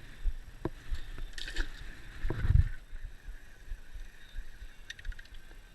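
Water slapping and knocking against a small fishing boat's hull, with irregular low thumps and the loudest one about two and a half seconds in.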